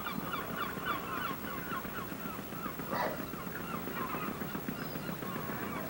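Gulls calling: many short, overlapping cries in quick succession, one a little louder about three seconds in, over steady low background noise.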